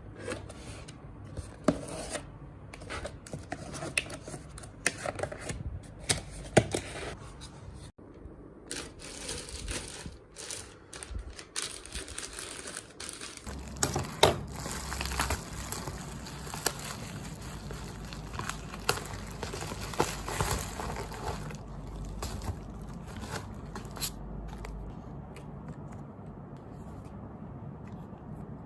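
Album packaging being handled and opened: paper and plastic tearing, crinkling and scraping, with many small sharp clicks and knocks.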